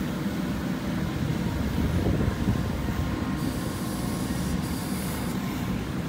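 JCB backhoe loader's diesel engine running under load as the backhoe arm digs and swings through soil: a steady low rumble, swelling slightly about two seconds in.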